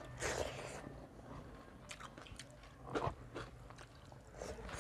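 People chewing and biting mouthfuls of food eaten by hand, with wet mouth sounds and scattered short clicks and smacks.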